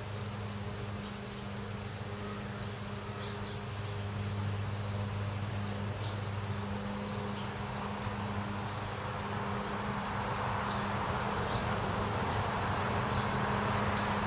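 Insects chirping in a steady high, pulsing chorus over a low steady hum. In the second half the noise of a passing car rises as it approaches.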